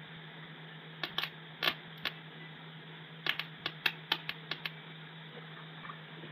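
About a dozen sharp, irregular clicks and light taps, in two clusters in the first two-thirds, over a steady low hum.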